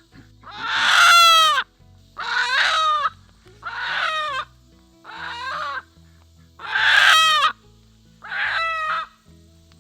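A chicken squawking loudly six times, each call about a second long and dropping in pitch at the end. A low music bed runs underneath.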